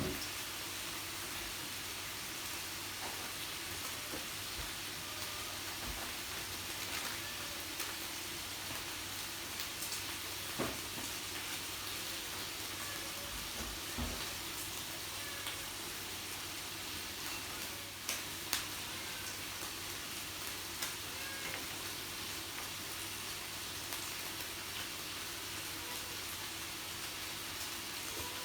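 Meat sizzling on a yakiniku grill: a steady hiss with occasional sharp clicks and pops.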